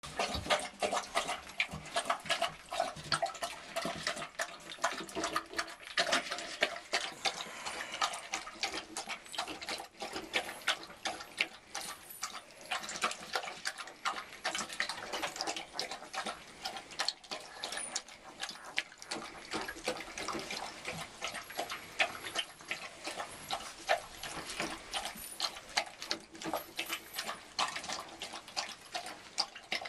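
Alaskan husky eating wet food from a steel bowl: quick, irregular wet lapping and chewing clicks.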